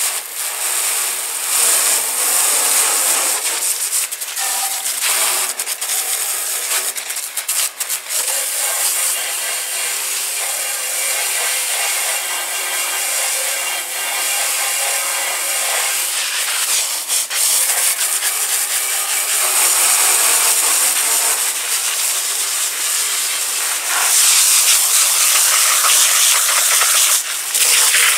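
Pressure washer wand spraying a fine, high-pressure jet of water onto a steel go-kart frame and its tyres, a steady hiss that is a little louder in the last few seconds.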